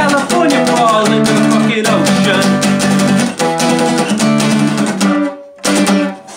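Acoustic guitar strummed hard and fast in a punk rhythm, closing out a song. The strumming breaks off about five seconds in, then one last chord rings briefly and is cut short.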